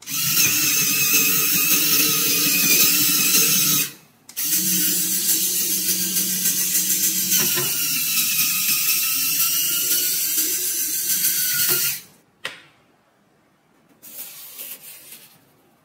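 Lego Technic car's small electric motor and plastic gear train running with a steady whine for about four seconds, stopping briefly, then running again for about seven seconds before cutting off. A fainter, shorter rustle follows near the end.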